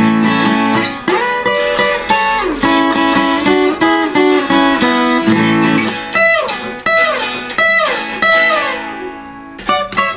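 Acoustic guitar played fingerstyle, a steady run of plucked notes. In the second half several notes slide down in pitch one after another. The sound briefly fades out just before the end, then the playing picks up again.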